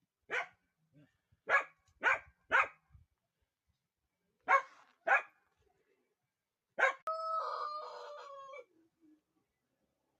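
A dog barking in short, sharp barks, seven in all, in uneven bursts. About seven seconds in comes one drawn-out, crow-like pitched call lasting about a second and a half.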